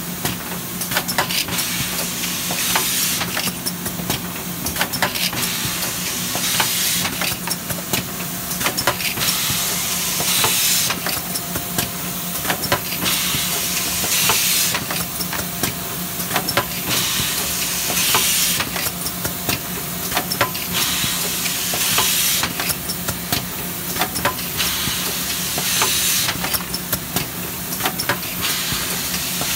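1996 Hang riveter three-ring binder machine running: a steady motor hum under rapid mechanical clicks and knocks, with a burst of compressed-air hiss from its pneumatics about every two seconds.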